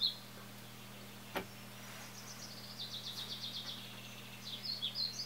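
A small bird chirping in quick, high twittering phrases, with a fast trill about two to three seconds in, over a steady low hum. A single sharp click about a second and a half in.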